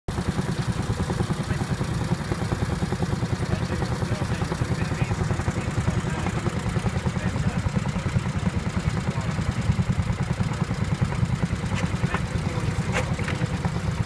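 Small engine of a two-wheeled walk-behind tractor running steadily with a fast, even chug as it pulls a single-furrow plough through the soil.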